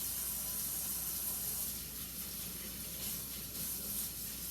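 Kitchen tap running steadily into a sink during dishwashing, a continuous hiss of flowing water.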